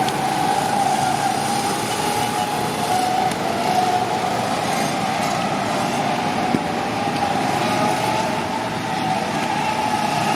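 Small go-kart engines running on the track, a steady high-pitched whine that climbs in pitch near the end as the karts speed up.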